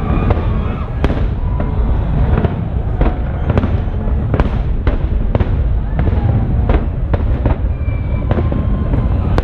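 Fireworks exploding: a string of sharp bangs about one or two a second over a continuous low rumble.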